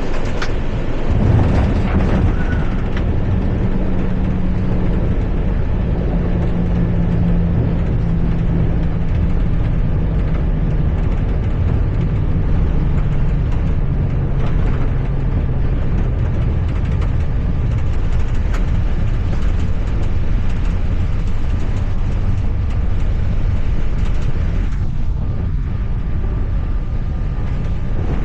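Airliner noise heard from the flight deck: a constant rush of air and engines, with a single knock about a second in and a low hum that slowly drops in pitch over the next ten seconds or so.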